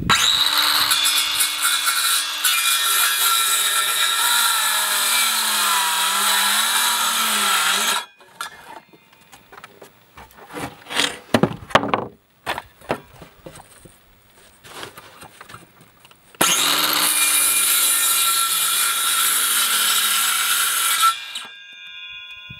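Parkside 20V cordless circular saw cutting through an OSB board. The motor's pitch sags lower as the blade bites. The saw stops after about eight seconds and is followed by knocks and clatter as the board and saw are handled. A second cut of about four and a half seconds follows.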